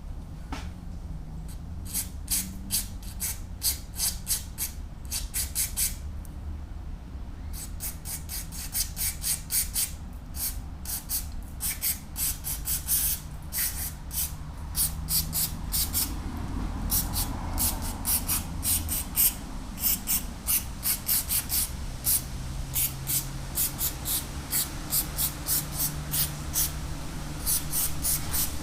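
Aerosol carburetor cleaner sprayed in many short, quick hissing bursts, several a second in runs with brief pauses, flushing the passages of a scooter carburetor. A low rumble, like wind on the microphone, runs underneath.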